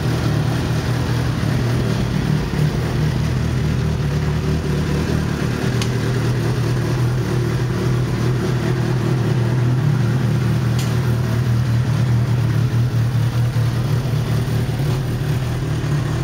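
Sport motorcycle engine idling steadily.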